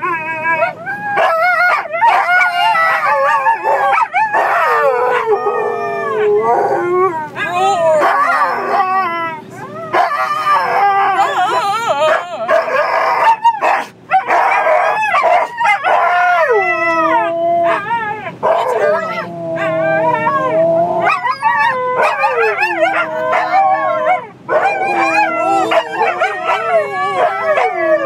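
Several Siberian huskies howling and yipping together inside a car, a loud, unbroken chorus of overlapping calls that slide up and down in pitch.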